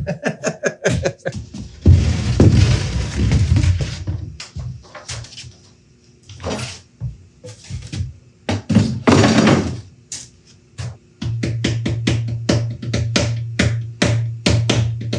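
Background music with a steady beat, joined near the end by a steady bass line. It is broken by a few loud bursts of scraping noise from plywood sheets being handled at a table saw.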